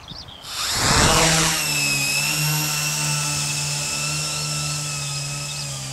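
FPV tricopter's brushless motors and propellers spooling up with a rising whine at takeoff, loudest about a second in, then running as a steady multi-toned buzz as it climbs away and flies.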